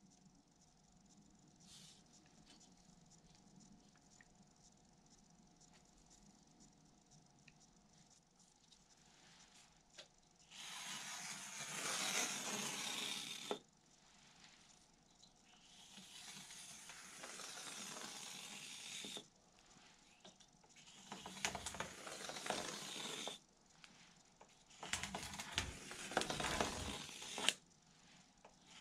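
A blade drawn along a steel ruler, cutting a balsa wood spar strip to depth: four long cutting strokes of about three seconds each, beginning about ten seconds in.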